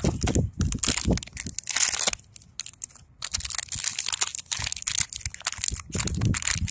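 Shiny foil blind-bag wrapper crinkling and crackling irregularly as a gloved hand pulls it from its box and crumples it.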